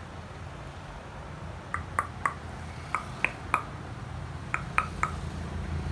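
Three sets of three quick tongue clicks, about a quarter second apart, over a steady low hum.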